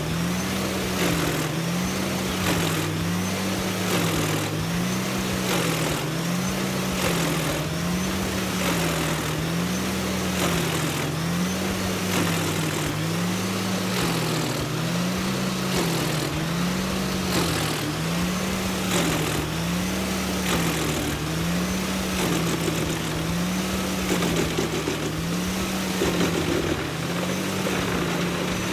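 Wood chipper running steadily, with a low hum that rises and falls evenly about every second and a half.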